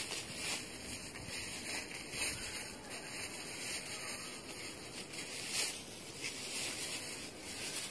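Steady hissy outdoor noise with soft rustling, rising and falling a little; no meow or voice stands out.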